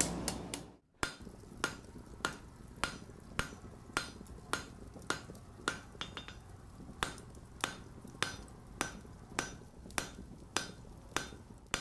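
Blacksmith's hand hammer striking on an anvil in a steady rhythm, somewhat under two blows a second, each blow with a short metallic ring. The blows break off briefly about a second in, then continue evenly.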